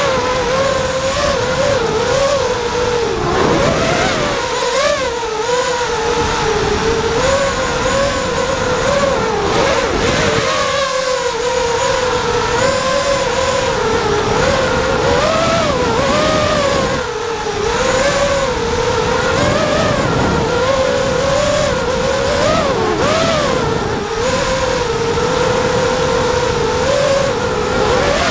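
A Misfit 210 FPV racing quadcopter's Cobra 2204 2300kv brushless motors spinning DAL 5045 tri-blade propellers, heard from the GoPro on the quad. The whine swoops up and down in pitch without pause as the throttle is worked in hard acro flight, dipping twice in the second half.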